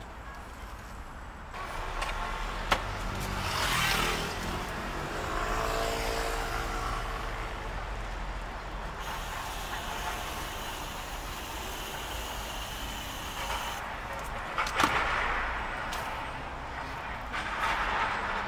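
Street traffic: vehicles passing by, their noise swelling and fading several times, with a couple of sharp knocks.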